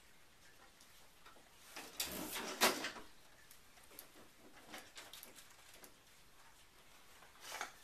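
Things being handled and moved about: a scraping slide and knock about two seconds in, then scattered light taps and another short scrape near the end.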